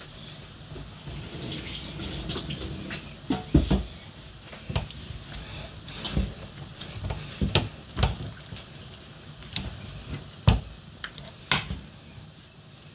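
Kitchen cooking sounds at a steaming aluminium pot of soup: wet, watery handling as leafy greens go into the pot, with irregular knocks and clinks of a spoon against the metal pot.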